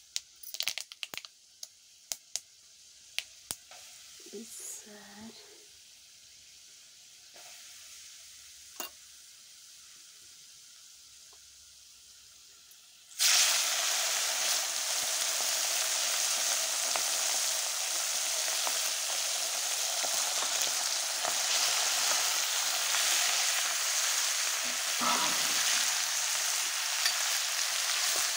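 Faint crackles and pops from whole spices in hot oil in a kadai, then about halfway through a sudden loud sizzle as chunks of buffalo meat go into the oil. The meat fries with a steady sizzle after that.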